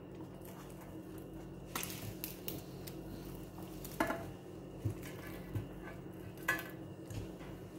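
A handful of light taps and clinks on a metal serving platter as pieces of food are picked off it by hand, over a steady low hum.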